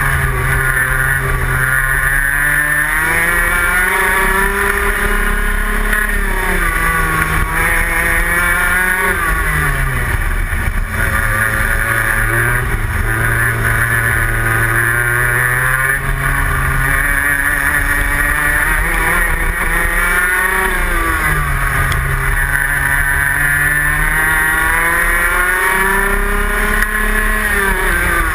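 Rotax Max 125cc single-cylinder two-stroke kart engine at race pace, heard from the kart itself. Its note climbs steadily under full throttle, then drops back sharply, over and over as the kart accelerates out of corners and lifts into the next ones.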